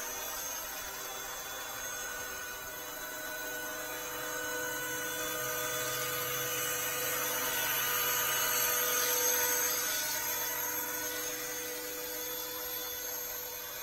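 Electric 470-size RC helicopter with a Schweizer 300C scale fuselage in flight: a steady, high, drill-like motor whine that grows louder toward the middle and fades again.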